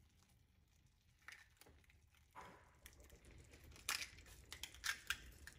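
Eggs being cracked and dropped into a pan of thick tomato sauce: faint scattered cracks and crackles of eggshell, sharper and more frequent in the second half.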